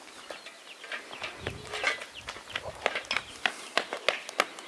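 Chickens clucking, mixed with a run of short, sharp clicks and taps.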